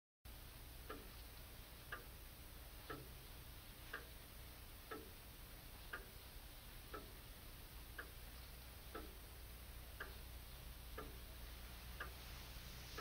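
A clock ticking about once a second, alternating between a sharper tick and a duller tock, faint over a steady hiss.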